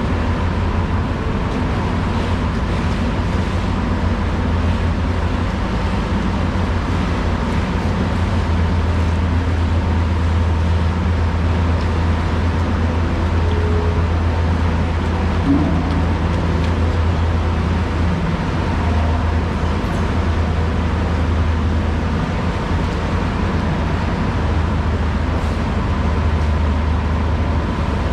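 Steady low mechanical hum with a thin constant whine above it, running without a break.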